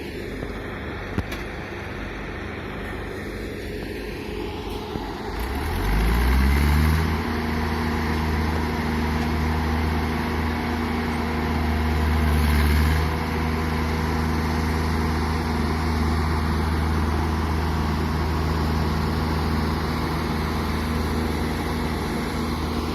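Heavy diesel engine of road-construction machinery running. About five seconds in, it revs up with a rising pitch and settles into a steady low drone, swelling louder briefly twice.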